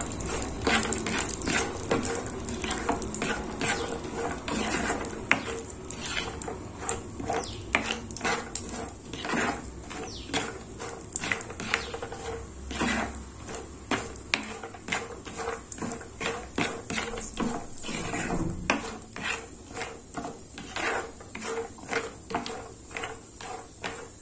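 A spatula scraping and knocking around a nonstick pan, a few strokes a second, as cashews, almonds and black raisins are stirred while frying in ghee, with a light sizzle underneath.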